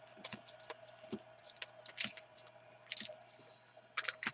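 Packs of hockey cards being dealt one at a time onto a table: irregular light clicks and wrapper crinkles, about three a second, over a faint steady hum.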